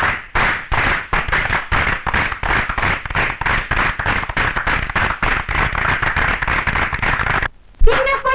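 Fast, loud percussion strikes, about four or five a second, in a film song's instrumental opening. The strikes stop near the end, then one hard hit lands and a melody line comes in.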